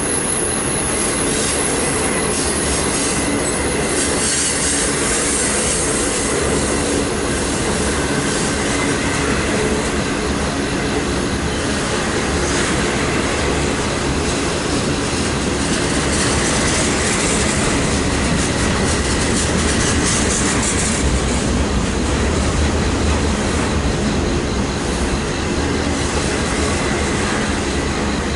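Union Pacific intermodal freight cars rolling past with a steady, loud rumble and rattle of wheels on the rails. High-pitched wheel squeal comes and goes, strongest about four seconds in and again around the middle.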